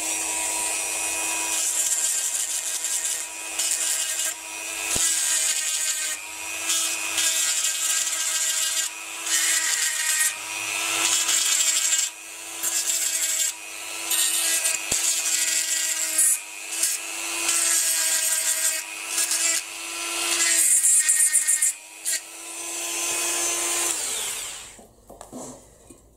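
Dremel rotary tool running at a steady high-pitched whine while grinding the heads off the mounting lugs that hold the tail lights, grilles and exhaust tips in a diecast model car body. A harsh grinding noise swells and drops every second or two as the bit is pressed in and lifted off. The tool is switched off near the end.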